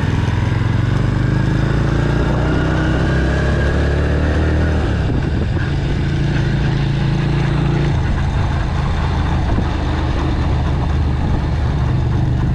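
Motor vehicle engine running under way, its pitch rising as it speeds up through a gear and then dropping at a shift about five seconds in, with another change in engine note near eight seconds.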